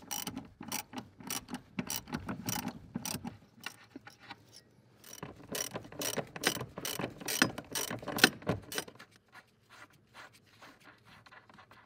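Ratchet wrench clicking as it backs off the nuts that hold the brake booster to the firewall. The clicks come at about three a second in two runs, with a short pause between them, and only faint ticks near the end.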